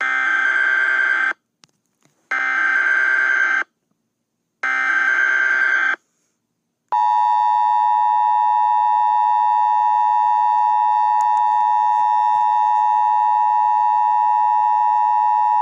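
Emergency Alert System tones: three short bursts of the warbling digital SAME header, each just over a second long with about a second's gap between them, then, about seven seconds in, the steady two-tone EAS attention signal begins and holds.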